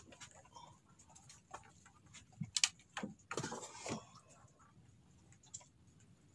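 Irregular light taps and knocks, with one sharper knock and a short scuffling patter around the three-second mark: small fish flapping and slapping on the pier deck as they are taken off a multi-hook line.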